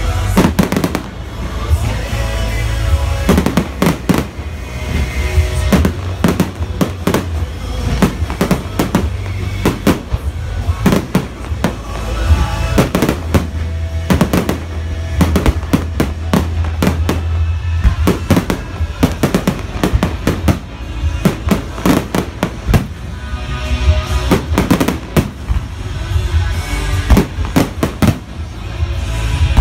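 Aerial fireworks bursting in a rapid, irregular string of loud bangs and crackles, with music playing under them.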